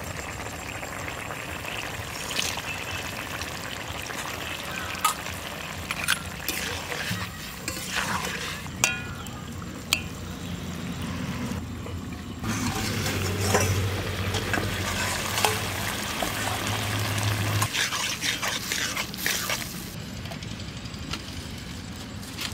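Pui shaak and potato curry sizzling and bubbling in an aluminium kadai as it is stirred, with sharp metal clinks of utensils now and then.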